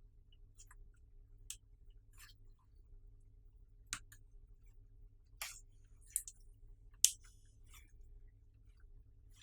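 Slime being squeezed and mixed by hand, giving sparse sticky clicks and pops, the loudest about seven seconds in.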